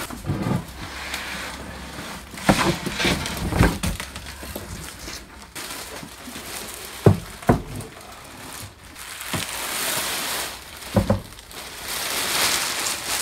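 Clear plastic packaging rustling and crinkling, with cardboard scraping, as a benchtop metal bandsaw is lifted from its box and unwrapped. Several sharp knocks and thumps come as the saw is handled and set down.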